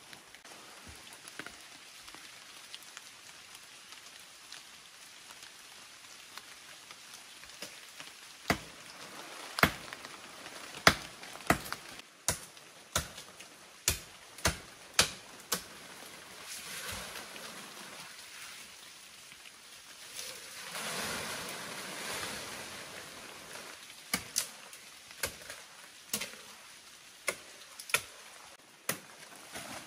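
A blade chopping into a sapling's wood: sharp single strikes in runs, starting about eight seconds in and coming again near the end. Leaves and branches rustle for a few seconds in the middle.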